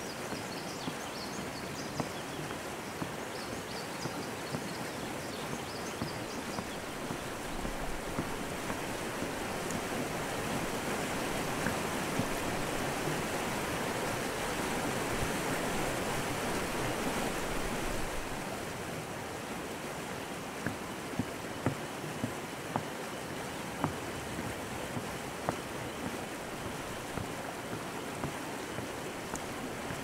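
Steady rush of a creek running over shallow rapids, swelling louder through the middle. Faint bird chirps in the first few seconds, and a few light footfalls on a wooden bridge deck near the end.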